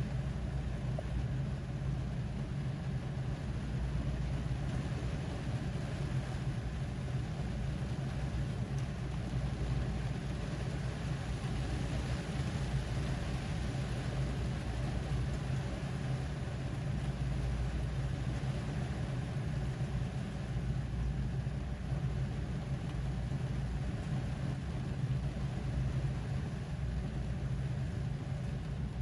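Steady rain falling on a car's roof and windows, heard from inside the cabin, with a strong low rumble under the even hiss.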